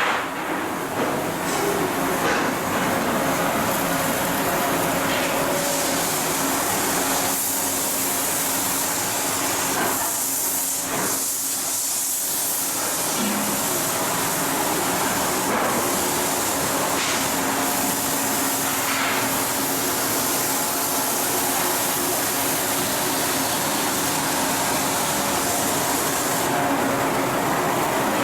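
Continuous loud hissing noise of shipyard machinery at work, with faint steady tones running through it.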